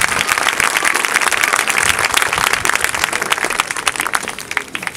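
Crowd applauding, with dense clapping that thins out and fades near the end.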